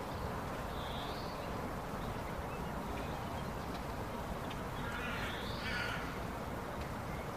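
Outdoor ambience: a steady rushing background noise with birds calling over it, a short high call about a second in and a longer, harsher call around five seconds in.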